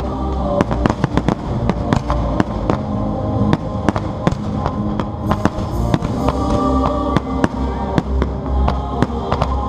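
A fireworks display going off in a dense run of sharp bangs, several a second, over loud music played with the show, which has a pulsing low bass.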